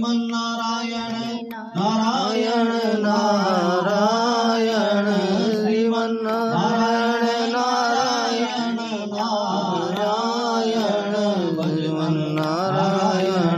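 Hindu devotional mantras chanted melodically, with music, over a steady held pitch, with a brief break about two seconds in.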